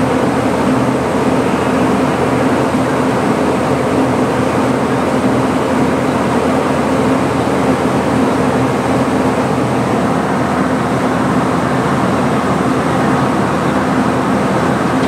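Steady, loud running noise from underneath a stopped locomotive: a constant hum with a rush of air that does not change.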